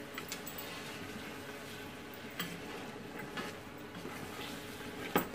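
Mutton frying in oil in an aluminium pot, sizzling steadily while it is stirred with a wooden spoon. The spoon knocks against the pot a few times, most sharply near the end.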